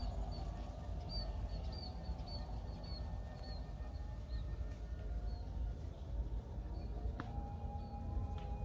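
Rice-field ambience: a steady high-pitched insect drone, with a bird's short chirps repeated quickly through the first half and fading out after. Low wind rumble on the microphone runs beneath.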